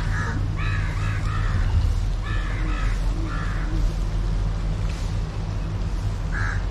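A crow cawing, a run of harsh caws in the first few seconds and one more near the end, over a steady low rumble.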